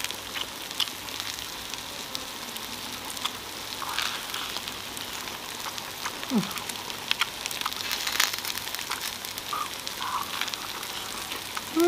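Slices of beef tongue sizzling on a round tabletop grill pan: a steady crackling hiss. Close by, the crunch and smack of chewing lettuce-wrapped meat, and a short 'mm' about six seconds in.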